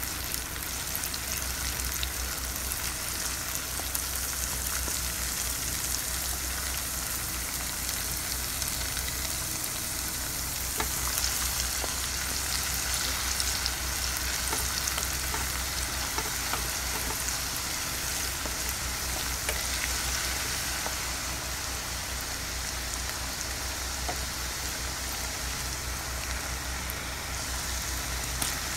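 Crushed panch phoron frying in hot mustard oil in a pan, a steady crackling sizzle, stirred with a wooden spatula.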